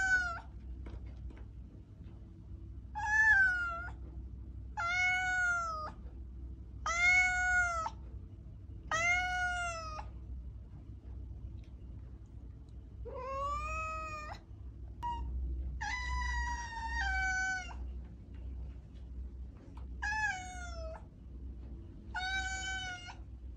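A cat meowing again and again, about nine meows spaced roughly two seconds apart with a short pause near the middle. Each meow is a clear, high call that arches up and then falls in pitch, over a faint low hum.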